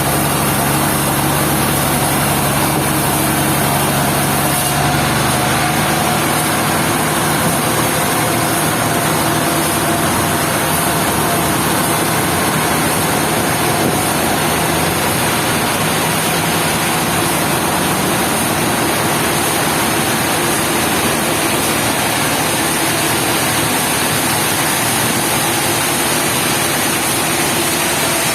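Sawmill machinery running steadily and loudly: an engine drone under a constant noisy rush. The engine's note changes about five seconds in, then holds.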